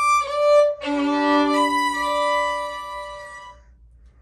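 Solo violin played with the bow: a few short notes on one pitch, then about a second in a sustained chord of several notes that rings and fades away over the next few seconds.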